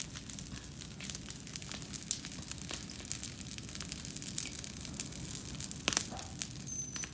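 Wood bonfire burning, with dense irregular crackling and popping.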